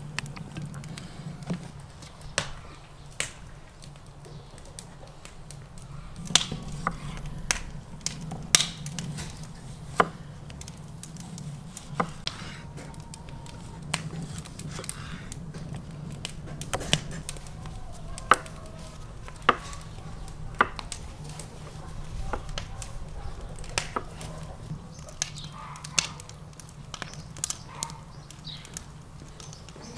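Kitchen knife slicing tomatoes on a wooden cutting board, the blade knocking sharply and irregularly against the board, over a steady low hum.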